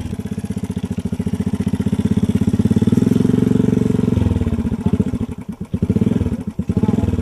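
Motorcycle engine running close to its exhaust as the bike pulls a plough through the soil, a fast steady beat of exhaust pulses. The note drops a little about four seconds in, and the beat falters and dips unevenly around five to six and a half seconds in before picking up again.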